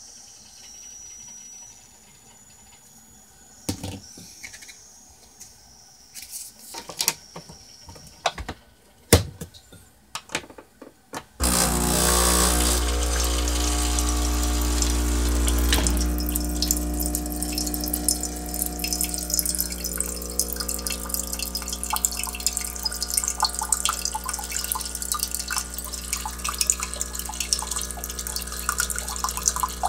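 Bosch Tassimo pod coffee machine: a few clicks and knocks as the T-Disc is loaded and the machine is shut. About a third of the way in the brewing starts suddenly, with the machine's pump running with a steady hum while the coffee stream splashes into the mug.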